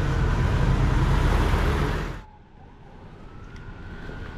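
Loud road traffic noise on a busy street, cutting off suddenly about two seconds in. It gives way to a quieter street background with a faint thin whine.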